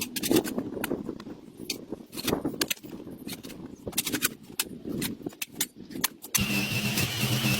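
Irregular scratchy scrapes and clicks of weeds and soil being cleared by hand. About six seconds in, a small motor's steady high whine cuts in.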